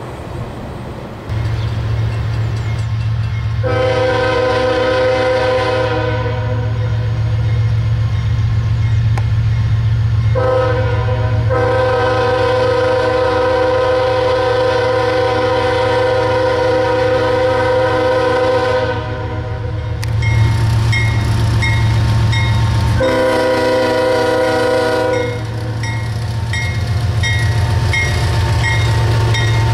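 CSX diesel freight locomotives' multi-chime air horn sounding in separate blasts, the second one long, as the train approaches a grade crossing, over the steady rumble of the diesel engines. A bell dings steadily in the second half.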